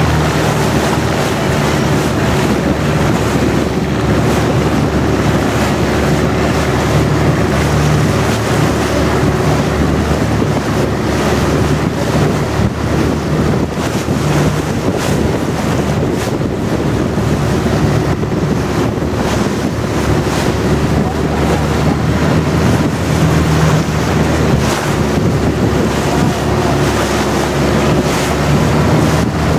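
Long-tail boat's engine running steadily under way, a loud even drone, mixed with water rushing past the hull and wind buffeting the microphone.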